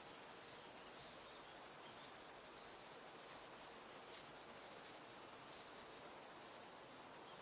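Faint, thin, high calls of Japanese white-eyes over a steady background hiss: a call near the start, then a rising call about two and a half seconds in followed by a quick run of four or five short notes.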